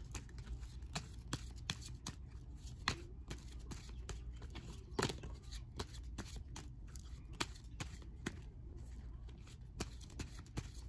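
A Bicycle deck of playing cards being shuffled overhand by hand: quick, irregular clicks and flicks as the cards slap together, a few per second.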